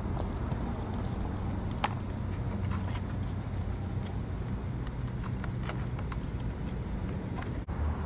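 A steady low outdoor hum with a faint droning tone underneath, over which come scattered light clicks and taps of hands fitting a battery and its leads into the nose of a foam RC airplane.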